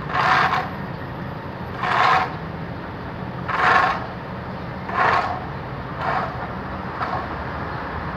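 A steel shovel scraping across the road surface as it scoops up loose dirt, six strokes one to two seconds apart, the last three softer. A steady low engine hum runs underneath.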